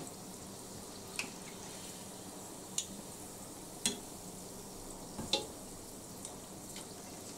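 Corn dogs deep-frying in a pan of hot oil, a steady quiet sizzle, with a few sharp clicks of a metal fork against the pan as they are hooked out of the oil.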